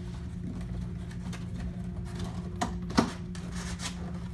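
Corrugated cardboard being handled as a shelf is fitted into a cardboard display, with a few sharp taps and clicks as tabs are pushed into slots, the loudest about three seconds in.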